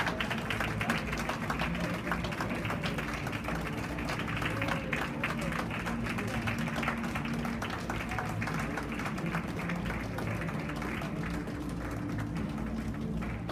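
Music playing, with an audience clapping throughout.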